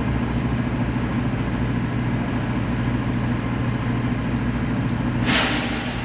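Dive boat's engine idling steadily with a low hum, the sea washing around the hull. Near the end there is a short rush of splashing water as a scuba diver climbs the stern ladder, water pouring off his gear.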